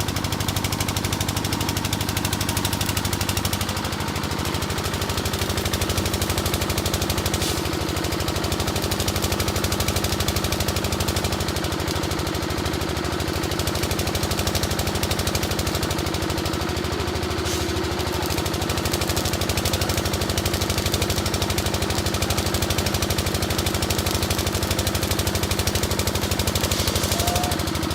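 An engine running steadily with a fast, even knocking pulse.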